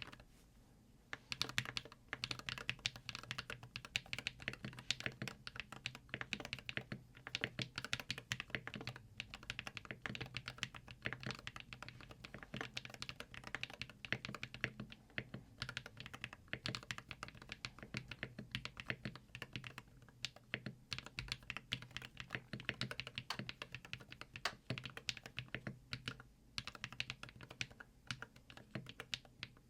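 Fast, continuous typing on a LUMINKEY Magger 68 HE Pro magnetic-switch keyboard, with an aluminium plate, silicone sandwich foam and lubed stabilisers. The keystrokes start about a second in.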